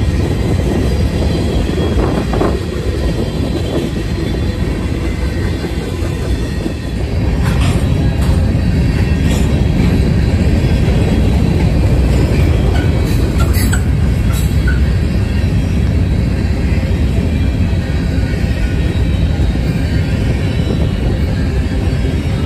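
A train rolling past: a steady heavy rumble that grows louder about seven seconds in, with a few sharp clicks from the wheels and rails.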